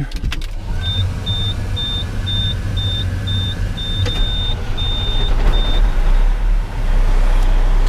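Detroit Series 60 diesel of a Western Star truck idling just after start-up, heard from inside the cab. A dash warning beeper gives about ten short high beeps, one of them longer. Near the end the air-conditioning blower comes on with a loud steady rush.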